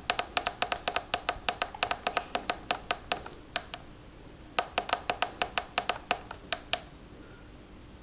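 Push-button switches on an automatic school bell's control panel clicked rapidly, about four or five presses a second, to step back through the menus to the home screen. Two runs of clicks with a short pause between them.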